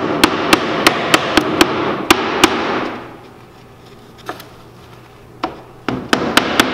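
A hammer tapping an OSB plywood cross member down into the slots of a building-form panel, about three or four quick knocks a second for roughly three seconds. After a pause with a couple of lone knocks, a second short run of taps comes near the end.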